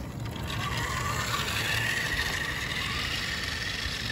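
Electric RC car's motor and gears whining as it drives off over asphalt, the whine rising in pitch over the first two seconds and then holding steady, with the rumble of the tyres on the pavement beneath.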